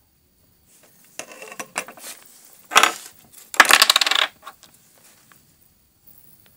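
Clattering and clinking of small hard objects being handled on a workbench, in a loose run of rattles with two loud spells about three and four seconds in.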